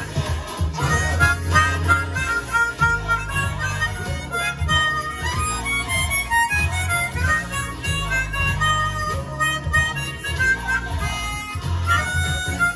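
Harmonica played into a microphone, a melody of short held notes starting about a second in, over a low bass accompaniment.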